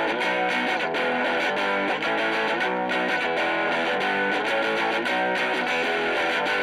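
Rock backing music led by a distorted electric guitar, at a steady level with a regular beat.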